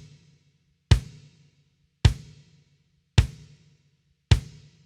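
22-inch Drumcraft Series 6 kick drum struck alone four times at an even pace, each hit short and quickly damped. It has a clear Remo Pinstripe batter head tuned low, a large 80s-style porthole in the resonant head and blankets inside muffling it.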